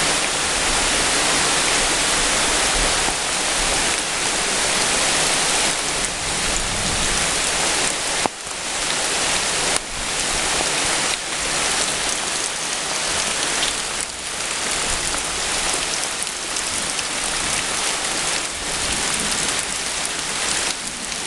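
Heavy rain falling steadily, a dense hiss that eases slightly after about eight seconds.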